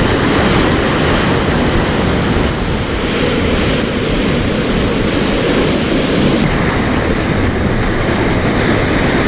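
Sea surf rushing steadily against shore rocks, mixed with wind buffeting the microphone.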